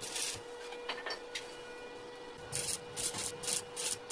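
Rhythmic hand rubbing strokes, scratchy like filing or sanding: a few scattered strokes at first, then a steady run of about four a second from about halfway through. A faint steady hum sits underneath.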